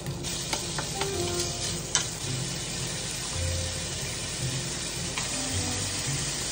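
Food sizzling in a frying pan, a steady hiss with a few sharp clicks of a utensil against the pan, the loudest about two seconds in.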